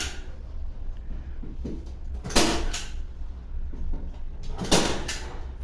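Staple gun shooting staples through reinforcing mesh into the ceiling: two sharp shots about two seconds apart, each trailing off over about half a second, over a steady low hum.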